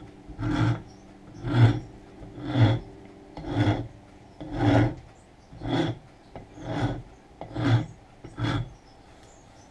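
A coarse rasp dragged across a wooden hatchet handle in nine slow, even strokes, about one a second, stopping near the end. It is roughing up the grip area to give the hand a hold.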